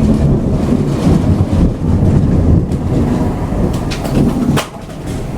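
Thunder rolling in a long, loud low rumble that drops off sharply about four and a half seconds in, with a few sharp clicks just before it fades.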